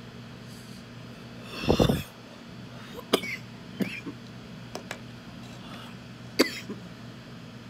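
A person coughs hard after inhaling cannabis smoke from a glass pipe: a loud burst of three quick coughs about a second and a half in, followed by several shorter, sharp sounds spread over the next few seconds.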